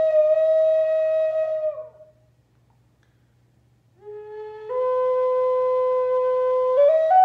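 Wooden end-blown flute playing a slow melody. A long held note slides down and fades out, followed by a pause of about two seconds; then a new phrase starts low, settles on a held note and climbs in quick steps near the end.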